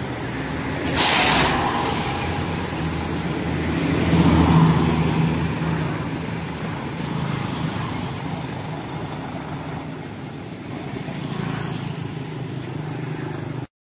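Diesel engine of a semi-truck tractor unit running steadily while reversing. A short burst of air-brake hiss comes about a second in, and the engine swells briefly around four to five seconds in before settling back.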